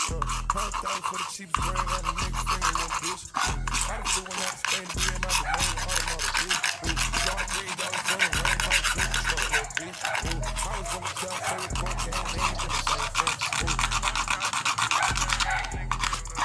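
Fast rasping, scraping strokes on the plastic running board, like a file worked over it, over a deep, regular bass beat from background music.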